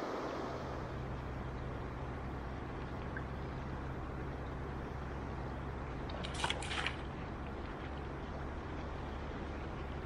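Steady rush of river water around a wading angler, under a low, even rumble. About six and a half seconds in there is a brief crackle of sharp clicks.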